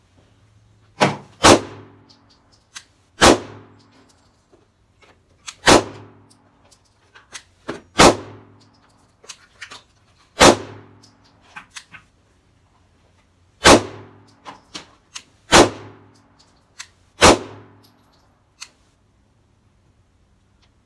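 Canik TP9 SA 9mm pistol fired in slow, aimed single shots: about nine sharp reports spaced one to three seconds apart, each ringing briefly, with faint clicks between them.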